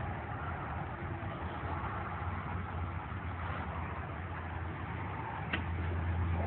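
A 1953 GMC cab-over tow truck's engine idling steadily with a low hum, and a single brief click near the end.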